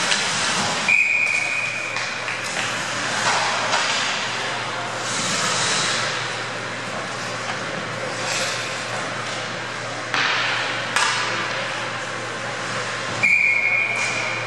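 Referee's whistle blown about a second in, a single steady shrill blast, with a second blast near the end; between them is the constant hiss of skates on the ice, with a couple of sharp knocks.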